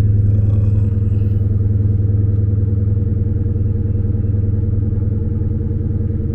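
Dodge Charger's Hemi V8 idling steadily, heard from inside the cabin.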